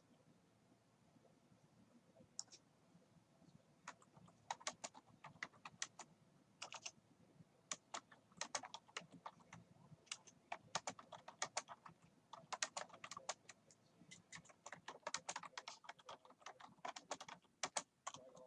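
Typing on a computer keyboard: a few scattered key clicks, then quick runs of keystrokes with short pauses between them from about four seconds in.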